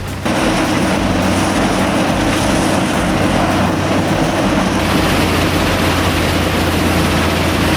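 Mobile crushing and screening plant running steadily: a loud, even machine noise with a constant low hum, cutting in abruptly about a quarter second in.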